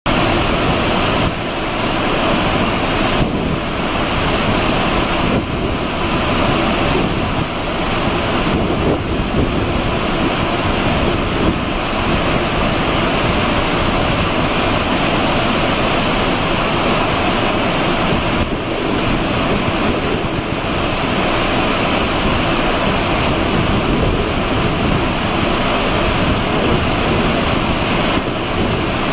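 Ship's wake churning: a loud, steady rush of white foaming water.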